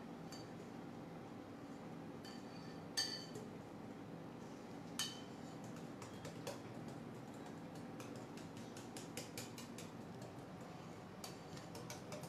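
Wire whisk beating a thin milk batter in a glass mixing bowl: quick light ticks of the wire against the glass, with a few louder clinks that ring briefly.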